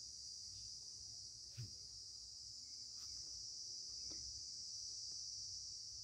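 Steady high-pitched background hiss with a few faint, soft clicks.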